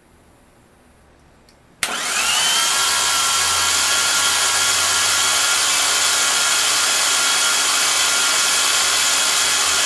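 Starter motor cranking a rebuilt Mazda 3.0 L V6 with its spark plugs out, so it spins steadily without firing. It kicks in suddenly about two seconds in, with a whine that rises briefly and then holds steady. The engine is being cranked to build oil pressure, but no oil is yet reaching the valve train.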